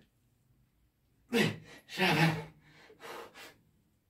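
A man breathing hard from exertion: after a quiet second, a run of four gasping breaths, partly voiced, the second the longest.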